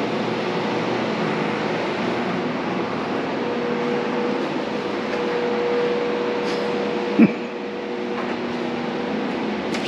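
Steady rushing noise with a low hum in a small cinder-block restroom, with one short sharp click about seven seconds in.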